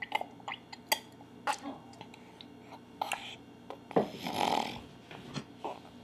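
Infant drinking water from a glass: small gulps, slurps and clicks, then a short breathy exhale about four seconds in as the glass comes away.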